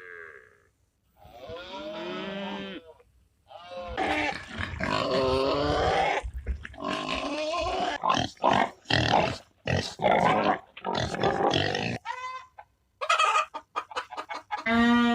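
Farm animals calling: a few separate pitched calls, then a long dense run of loud, harsh calls broken into many short pulses, ending in a quick series of short cries.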